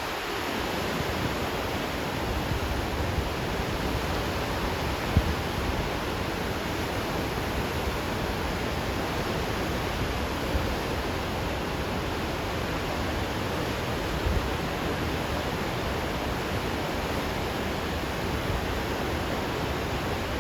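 Steady, even rush of heavy water flow at Akiba Dam, swollen by the typhoon's rain. There is a brief knock about five seconds in.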